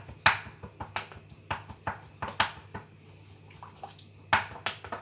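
A spoon stirring a mixture of onion juice, lemon juice and thick honey, clinking and scraping against the sides of its container in quick, irregular strikes, with a short lull a little past the middle.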